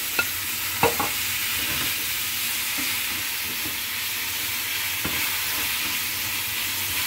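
Sliced white mushrooms sizzling in hot olive oil and garlic in a frying pan, a steady hiss, while being stirred with a spatula that knocks against the pan a few times, about a second in and again near five seconds.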